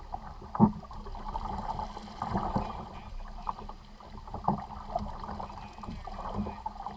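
Plastic fishing kayak sitting in moving creek water, with several short hollow knocks against the hull over a steady background of water and wind.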